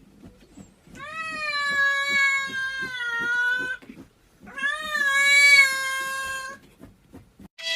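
A cat giving two long, drawn-out meows, the first nearly three seconds long and the second about two.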